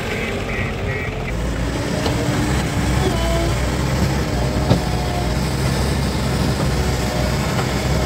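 JCB 3DX backhoe loader's diesel engine working under load as the front loader bucket is pushed into a heap of soil, its low running sound growing heavier about a second in. A single sharp knock comes a little past halfway.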